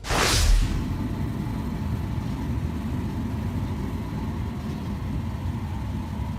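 A brief whooshing sweep, then a large farm tractor's diesel engine running with a steady low rumble.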